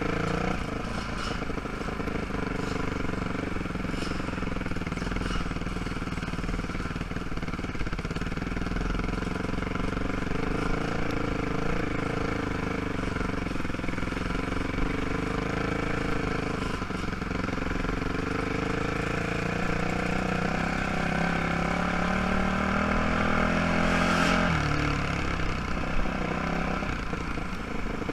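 ATV engine running steadily at a slow trail pace. Past the two-thirds mark its pitch climbs gradually for a few seconds, then drops suddenly.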